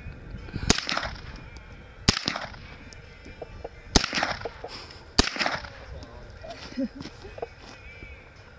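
Four single gunshots, one every second or two, each with a short echo.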